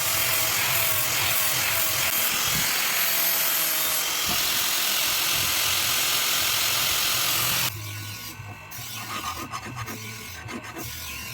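Abrasive work on a rusty car leaf-spring steel knife blank: a loud, continuous rubbing, grinding noise that stops suddenly about seven and a half seconds in, followed by quieter, uneven rubbing or filing strokes.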